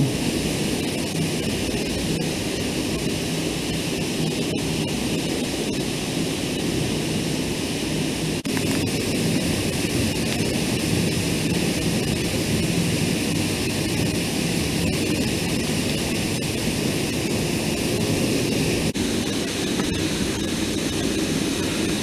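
Waterfall pouring down inside a cave dome: a steady rush of falling water and spray.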